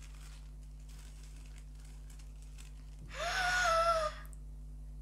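Faint rustling of tissue paper as a small gift box is unwrapped, then about three seconds in a child's loud, breathy gasp of surprise, voiced and slightly falling, lasting about a second.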